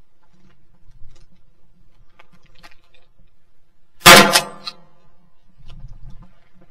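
A single loud shotgun shot about four seconds in, dying away over about half a second. Faint low handling rustle comes before and after it.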